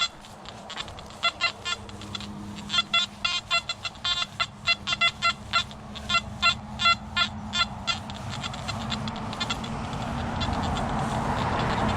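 Nokta Anfibio metal detector sounding a run of short, sharp beeps, about three or four a second, as the coil is swept over metal targets. A hissing noise builds up near the end.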